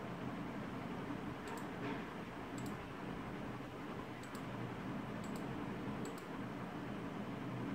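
Steady room noise, a low hum with hiss, with a few faint, short high-pitched ticks scattered through it.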